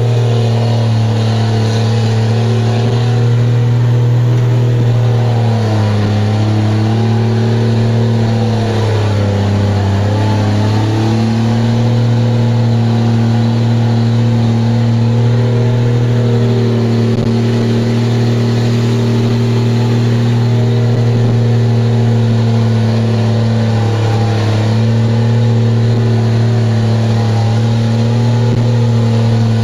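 ERF E10 tipper's Cummins straight-six diesel, straight-piped with no silencer, pulling steadily under load up a steep hill, heard from inside the cab. The engine note dips about nine seconds in and comes back up a couple of seconds later.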